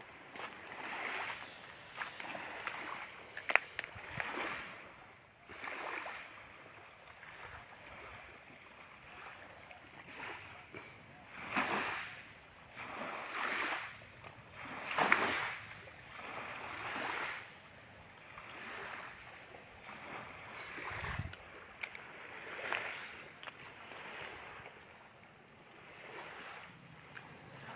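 Small waves lapping and splashing against a shore, coming in uneven swells every second or two, with a single sharp click a few seconds in.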